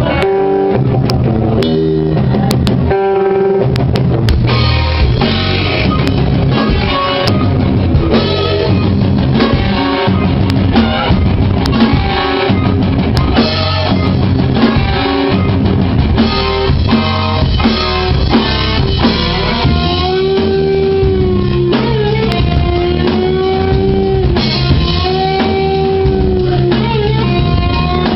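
Rock band playing live: drum kit, guitar and bass in a driving instrumental passage. In the second half a lead line of long held notes bends up and down in pitch.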